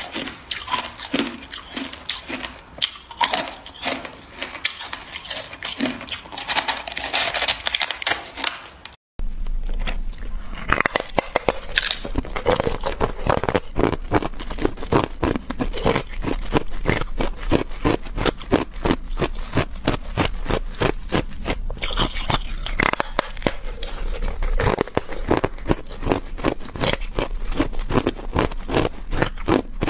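Ice being bitten and chewed close to the microphone, a fast run of crisp crunches. For the first nine seconds it is crushed, snowy ice. After a brief cut, hard clear ice blocks are chewed, with a steady low hum underneath.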